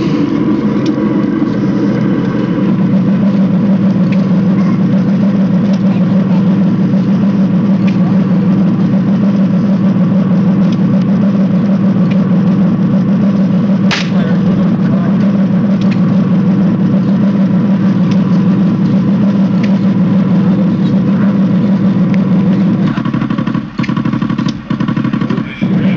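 Steady low engine drone from a running remote-control Tiger I model tank, holding one even pitch, with a single sharp click about halfway through and a few brief drops in level near the end.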